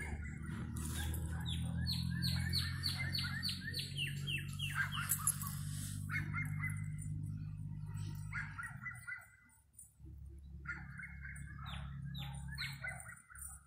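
Songbirds singing: runs of quick, repeated down-slurred notes, several a second, over a steady low rumble that drops out for a moment about two-thirds of the way through.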